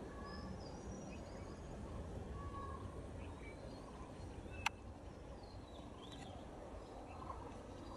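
Birds calling here and there in short chirps over a steady low rumble, with one sharp click a little past halfway.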